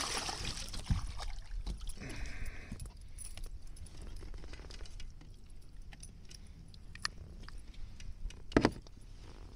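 A largemouth bass splashing at the side of a kayak as it is landed, then scattered clicks and small rattles of the fish and lure being handled aboard. A single sharp knock near the end is the loudest sound.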